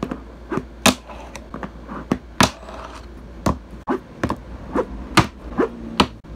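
Fingerboard clacking on a wooden desk as tricks are flicked and landed: an irregular run of sharp clicks and knocks, about two or three a second, with a few louder landings.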